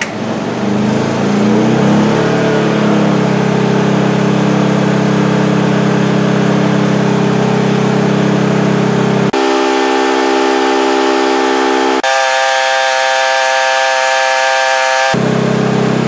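Honda eu2000i inverter generator's small single-cylinder engine speeding up out of eco mode as a space heater's roughly 1,500-watt load (about 12.9 amps) comes on, its pitch rising over the first few seconds and then holding steady under load. From about nine to fifteen seconds in, the tone changes abruptly and loses its low hum before returning.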